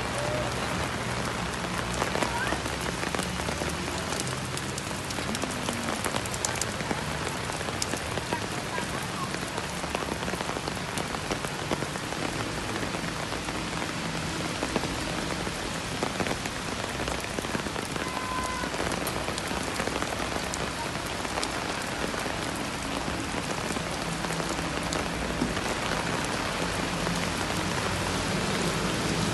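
Steady rain pouring down onto a flooded street and pavement, an even, unbroken hiss of rain.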